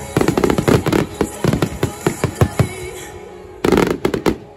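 Aerial fireworks going off in a rapid barrage of bangs and crackles that thins out after a few seconds. A last tight cluster of bangs comes near the end, then the sound stops suddenly.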